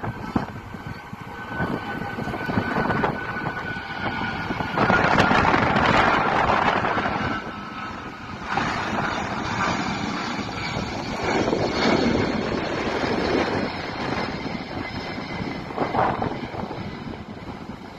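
Boeing 777-300 jet engines at climb power, heard from the ground as the airliner climbs away: a steady roar carrying a faint whine that slowly falls in pitch. It is loudest about five to seven seconds in, then fades unevenly.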